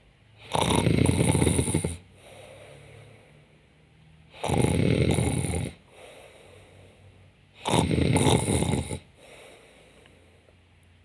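A woman fake snoring, deliberately put on while she pretends to sleep. There are three loud snores, each a little over a second long and about three and a half seconds apart, with softer breathing between them.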